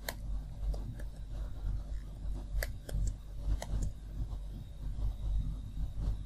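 Computer keyboard keys typed: a handful of separate sharp clicks, clustered in the first four seconds, over a steady low hum.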